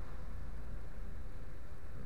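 Steady low rumble and hum inside a tram standing still.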